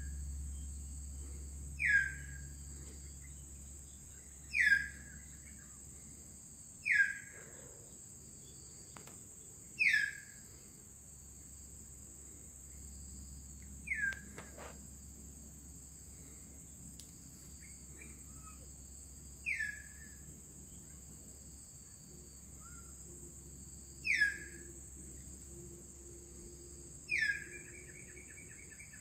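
Hill myna calling: a short, loud whistle that slides down in pitch, repeated eight times at gaps of two to five seconds. The last call runs into a quick series of repeated notes.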